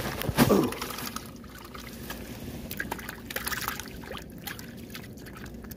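Light, irregular clicks and rustles of hands handling a tangled fishing rig, after a short louder sound just at the start.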